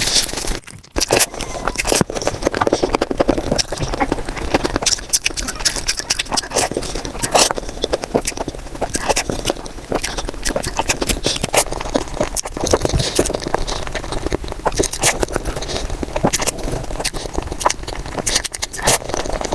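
Close-miked eating sounds of someone chewing a chia-seed and chocolate cake: a dense, continuous run of mouth clicks and smacks.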